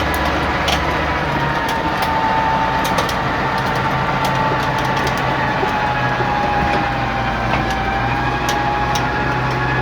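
Diesel engine of a Chetra T-15 crawler bulldozer running steadily, a high whine drifting slowly down in pitch over its low running sound, with scattered light clicks.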